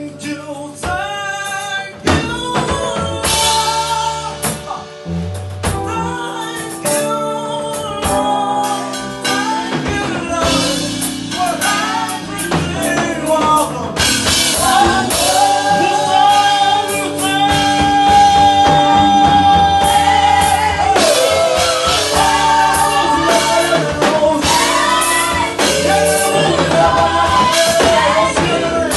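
Gospel praise song: lead singing over a band with drum kit, building fuller and louder about halfway through, with one long held sung note.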